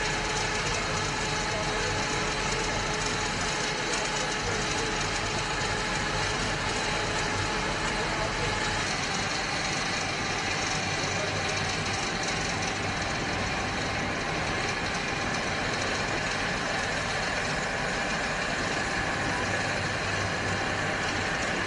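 Steady engine noise with a faint steady whine running through it. The deepest hum and one mid-pitched tone drop away about nine seconds in.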